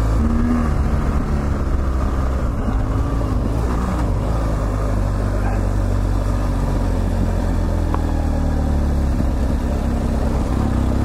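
BMW GS Adventure's boxer-twin engine running steadily, a low continuous motor sound.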